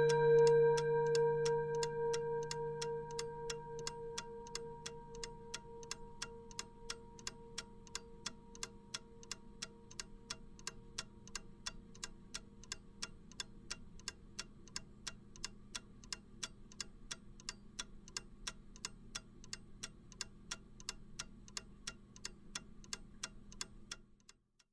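Striking clock ticking evenly, about two and a half ticks a second, while the ringing of its last hour strike fades away over the first few seconds. The ticking stops shortly before the end.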